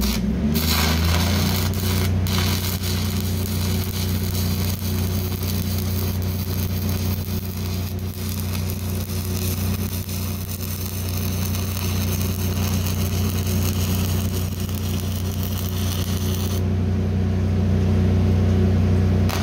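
Stick-welding arc crackling steadily as a bead is run on rusty steel plate; the arc breaks off about three seconds before the end. A steady low hum runs underneath.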